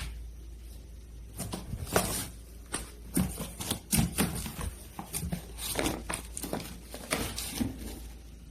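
Irregular clicks, knocks and light clatter of things being handled, over a low steady hum.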